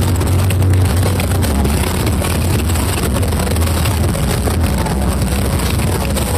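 Several giant carnival sound systems blaring at once at full volume, a dense distorted din dominated by a deep, steady bass with a hiss of noise above it and no clear tune.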